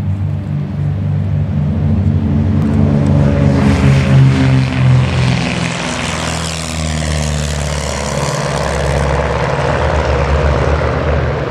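Three vintage Czech twin-engined light aircraft (a Let L-200D Morava, an Aero Ae-45S and an Aero Ae-145) flying past low together, their propeller-driven piston engines droning. The engine sound swells to its loudest about four to five seconds in, then the pitch drops as they pass and the drone carries on.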